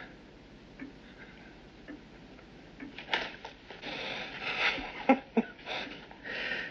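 A clock ticking about once a second, then from about three seconds in a man's ragged, heavy breathing with sharp gasps and sniffs.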